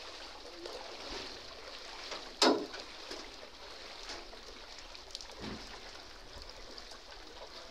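Floodwater sloshing and swishing around the legs of people wading through a flooded street, with one sudden loud thump or splash about two and a half seconds in.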